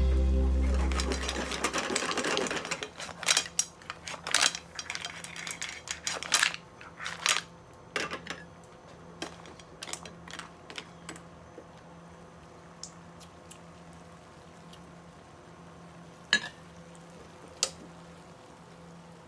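A metal spoon stirs mussels in their shells in a pan, making shells click and clatter against each other and the pan. The clicks come thickly at first and then only now and then, over a faint steady hum. Background music fades out in the first two seconds.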